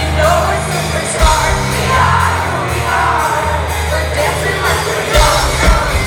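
Live pop concert music, loud through the PA: a sustained deep bass line under singing, with a regular kick-drum beat coming in about five seconds in.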